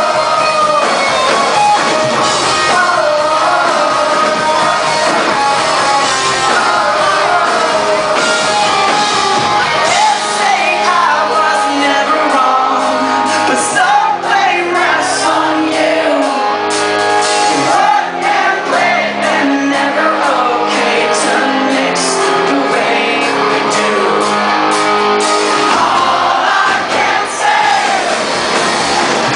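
Rock band playing live with a sung lead vocal over full band accompaniment. The low bass drops away about ten seconds in and comes back near the end.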